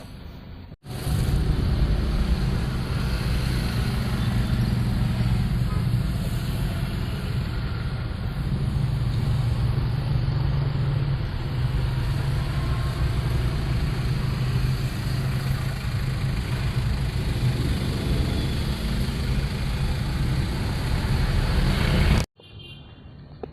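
Daihatsu Gran Max van engine running with a loud, steady low rumble, heard close up while the van drives. It cuts in abruptly about a second in and cuts off abruptly near the end.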